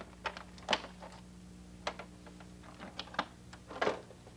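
Irregular clicks and knocks of a Honda diagnostic tool kit's hard case being handled and opened, and its hand pumps being lifted out of their holders.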